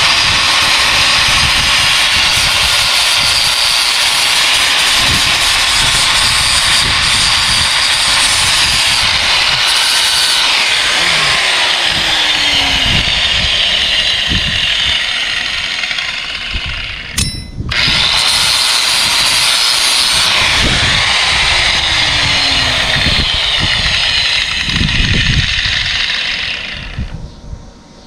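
Electric grinder running against the end of a steel baler shaft, grinding down the mushroomed high spots. It is a loud, steady hiss that cuts out for a moment a little past halfway, starts again, and dies away near the end.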